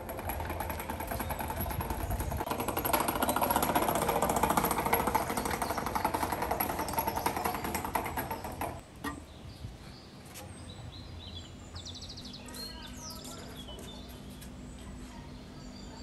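Wheeled iron stand of a clay tandoor rattling and rumbling as it is rolled over patterned paving stones. The rattle stops suddenly about nine seconds in, leaving quiet outdoor ambience.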